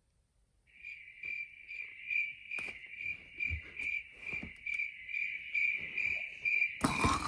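Cricket chirping, a steady pulsing high trill of about three chirps a second that starts about a second in. Near the end a loud rasping snore cuts in over it.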